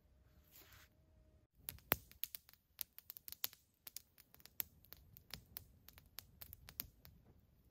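Small wood campfire crackling, with irregular sharp pops and snaps several times a second. They start about a second and a half in, after a faint hiss.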